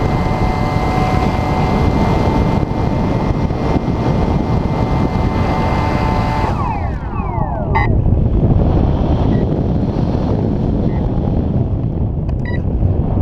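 RC powered glider's electric motor and propeller running at a steady high whine over heavy wind rush on the onboard microphone; about six and a half seconds in the motor is cut and its whine slides down in pitch and dies away, leaving only the wind rushing past the gliding airframe.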